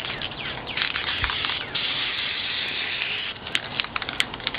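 A steady hiss with scattered clicks and crackles, heaviest from about two to three seconds in, then thinning out.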